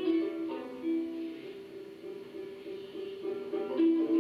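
Music: a slow melody of single plucked-string notes in a middle register, each note struck and left to ring.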